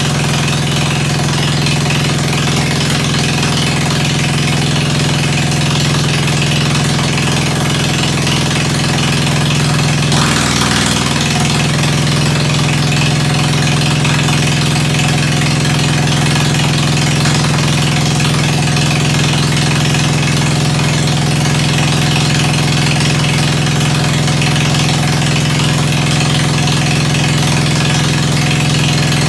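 Ford 100 garden tractor engine running steadily through its straight-pipe exhaust, with a brief dip in engine speed about ten seconds in.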